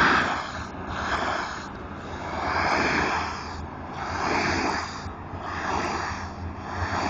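Pressure-washer spray hissing against a concrete parking lot at about 3,000 psi. The spray swells and fades roughly every one and a half seconds as the wand sweeps back and forth, over a steady low hum.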